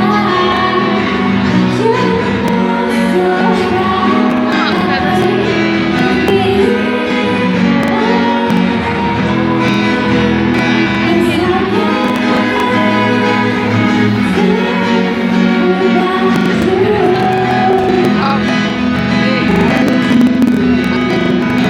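Live band music with a singer's voice over it, loud and continuous.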